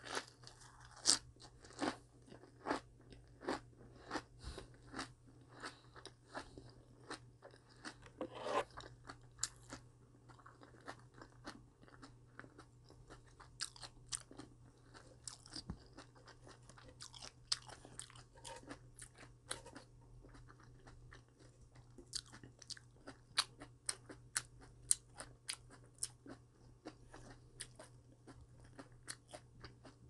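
A person chewing crisp raw vegetable wraps of cabbage and perilla leaves close to the microphone, with crunching at a steady chewing rhythm.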